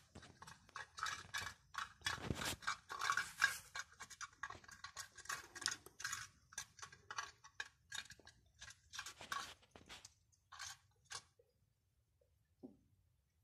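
A cat eating flan from a small cup: quick wet lapping and chewing smacks in a rapid irregular run, thinning out and stopping about eleven seconds in.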